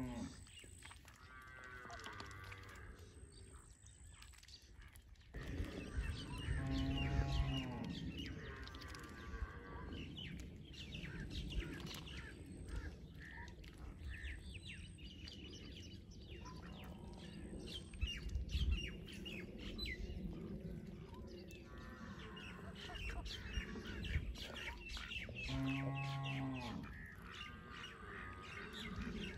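Small birds chirping on and off, with a low, drawn-out animal call about seven seconds in and another near the end.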